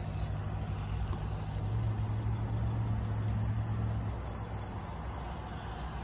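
A low, steady engine drone with a light rushing haze. It swells about two seconds in and eases off after about four.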